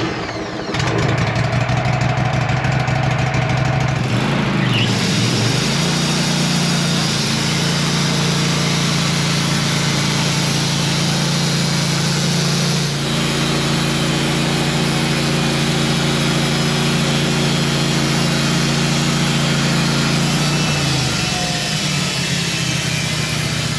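Wood-Mizer portable band sawmill running as its blade makes a first cut through a pine log. The engine revs up about five seconds in, holds steady under load through the cut, and drops back near the end.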